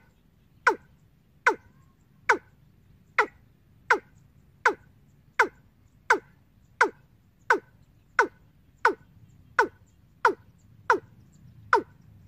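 Recorded 'ayam tembaga' bird call used as a trapping lure, played over a bird-trap amplifier: short notes that each drop quickly in pitch, repeated evenly about every three-quarters of a second.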